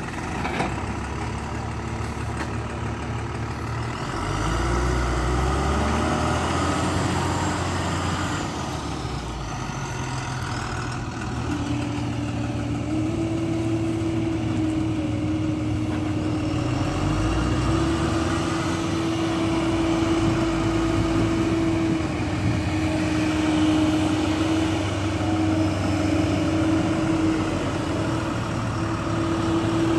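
Heavy diesel engines of a JCB tracked excavator and a Tata tipper truck running steadily, with a steady whine that joins about twelve seconds in.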